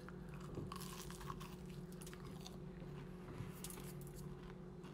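A person chewing and crunching a bite of fried food close to the microphone, with soft scattered crackles.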